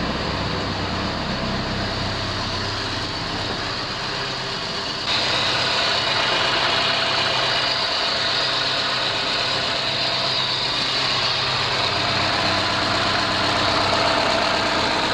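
Ford Scorpio's 1.8 OHC four-cylinder carburettor engine idling steadily; about five seconds in it becomes louder and brighter. The engine is worn, burning oil and smoking heavily, with an unsteady idle, and is due for an overhaul.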